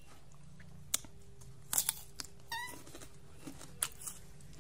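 Baby macaque munching an apple: a few scattered sharp crunches and clicks, with a short high chirp about two and a half seconds in.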